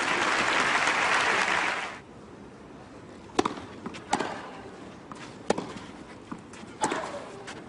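Crowd applause that cuts off abruptly about two seconds in, followed by a tennis rally on clay: several sharp racquet strikes on the ball, roughly a second apart.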